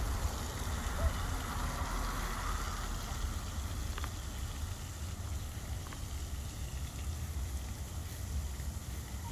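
Steady outdoor background noise: a low rumble with an even hiss over it and a few faint clicks.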